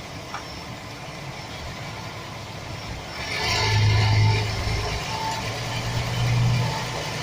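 Chevy Express 4.3-litre V6 engine running, growing louder about halfway through with a strong hum and a harsher rattly edge, easing, then swelling again near the end. The owner puts the rattle down to a bad starter motor gear bumping against the flexplate.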